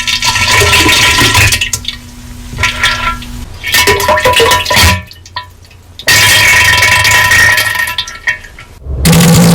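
Heavily distorted, clipped diarrhea sound effect: loud bursts of splattering noise that stop and start, with short breaks about five and nine seconds in.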